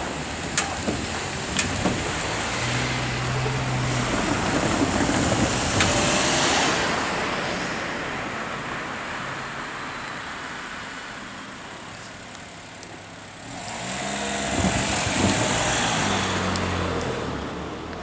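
Cars passing over a railway level crossing, with a few sharp clicks near the start. The traffic noise swells about five seconds in, eases off, and swells again around fifteen seconds in.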